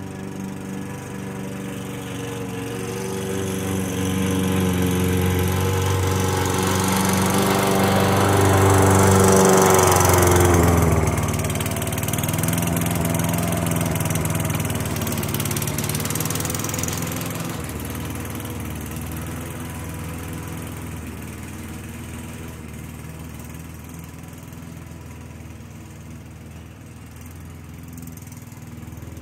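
Toro self-propelled lawn mower's 6.5 hp Tecumseh single-cylinder engine running steadily while mowing, now starting and running after the repair. It gets louder to a peak about ten seconds in, then fades gradually as the mower moves away.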